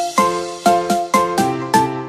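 Background music: a bright pop track with repeating chime-like chord notes, about four a second.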